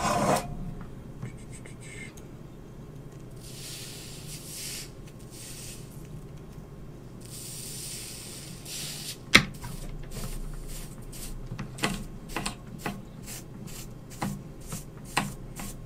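Hot soldering iron tip sizzling twice, each hiss lasting about a second and a half, as the tip is cleaned and tinned. Then a sharp knock about nine seconds in, followed by a run of light clicks and taps.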